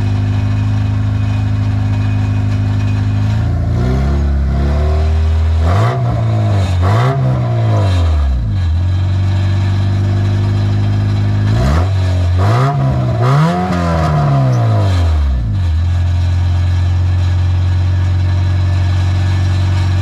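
Honda Civic EK hatchback's four-cylinder engine, breathing through Skunk2 Alpha Series headers, idling steadily and then revved in two sets of three throttle blips a few seconds apart. Each set has rises and falls in pitch before the engine settles back to idle.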